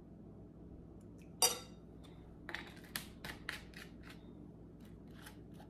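A metal spoon strikes the ceramic mixing bowl once with a short ringing clink about a second and a half in. A run of lighter clicks and taps follows from the spoon, bowl and sauce bottles being handled.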